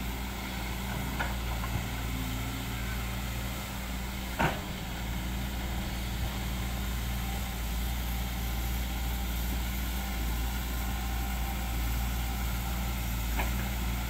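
SANY SY215C hydraulic excavator's diesel engine running steadily under load while it digs wet mud, with a single sharp knock about four and a half seconds in.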